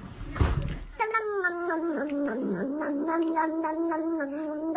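Short noisy thump in the first second, then a black-and-white cat yowling one long, drawn-out note that holds nearly level in pitch for about four seconds, with a brief dip in the middle.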